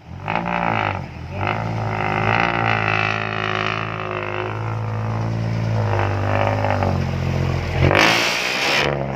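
Loud exhaust of a vehicle engine droning at held revs, its pitch wavering slightly. Near the end comes a loud burst of hiss lasting about a second.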